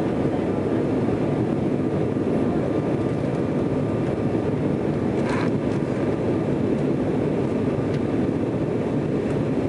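Steady roar inside the cabin of an Embraer E-195 airliner climbing just after takeoff: its twin turbofan engines at climb power and the rush of air past the fuselage. A brief faint higher noise comes about five seconds in.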